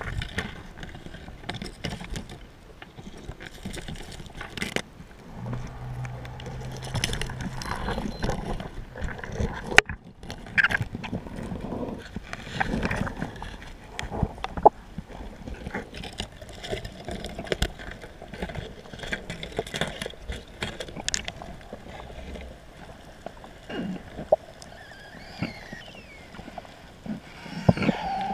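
Underwater sound picked up through an action camera's waterproof housing: a rough, muffled water rush with scattered sharp clicks and knocks. A steady low hum lasts about two seconds, starting around five seconds in.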